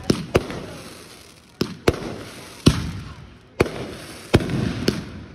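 Fireworks going off: about eight sharp bangs in five seconds, several in quick pairs, each followed by a rumble that fades away.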